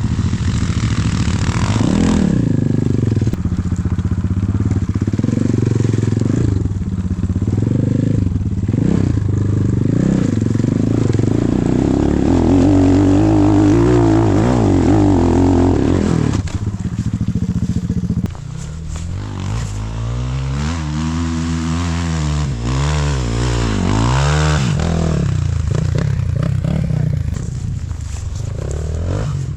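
Enduro dirt bike engine revving up and down with the throttle, its pitch rising and falling over and over. About eighteen seconds in it drops a little in level, and the revs then swing in quicker, deeper waves.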